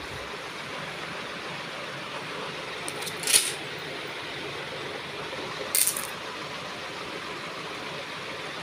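Small stone beads clattering onto a handheld magnet block in two brief rattles, the louder about three seconds in and another about six seconds in, as the beads are pulled onto the magnet. A steady hiss runs underneath.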